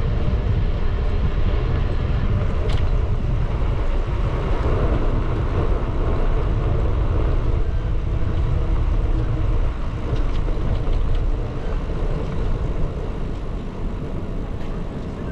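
Steady low rumble of wind buffeting the microphone on a moving bicycle, with outdoor noise mixed in and one sharp click about three seconds in.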